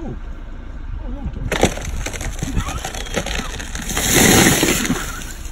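Large dead tree cracking, splintering and crashing to the ground as an elephant pushes it over. The crash of trunk and branches is loudest about four seconds in, then dies away.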